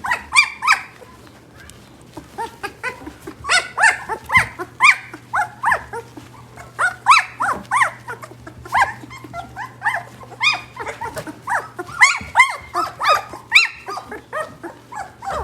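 A litter of 16-day-old German shepherd–husky mix puppies whining and squealing, many short high cries overlapping one after another.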